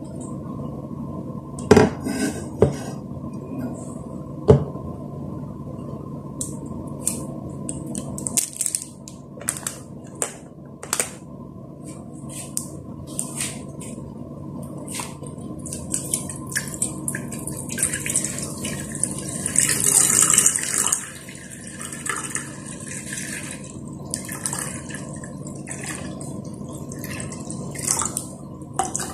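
A glass lid lifted off an electric cooking pot with a few clanks, then a plastic water bottle crackling as it is handled and water poured from it into the empty pot for several seconds past the middle.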